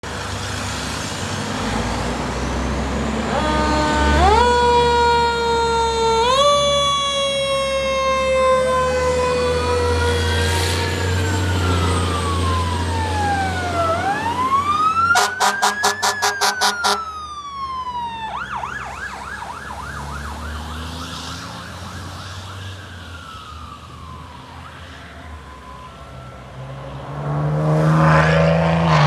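Fire truck sirens on apparatus responding: a siren tone jumps up twice and slowly slides down, then a wail rises and falls, with a short burst of rapid pulses and a fast yelp. Near the end a heavy truck engine grows loud as an apparatus passes close.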